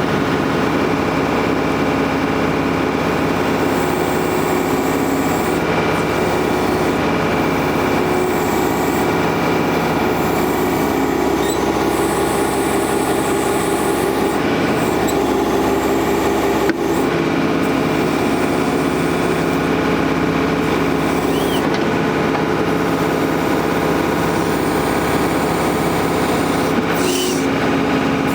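John Deere 485A backhoe's engine running steadily while the backhoe is worked, with a single sharp knock a little past halfway.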